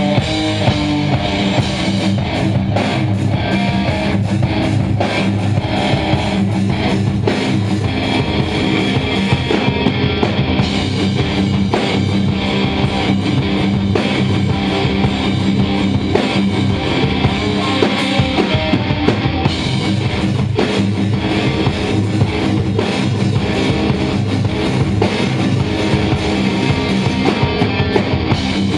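Loud rock music with guitar and drums, playing continuously.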